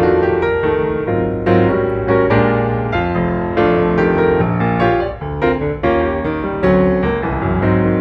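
Background piano music: a melody of struck notes over sustained low chords, running steadily.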